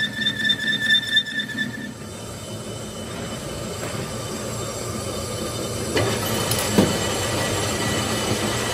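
Metal lathe boring out a hole in a rusty steel plate, with the boring tool squealing in a steady high pitch. The squeal stops about two seconds in, leaving the lathe's running noise, and a couple of sharp metal knocks come later on.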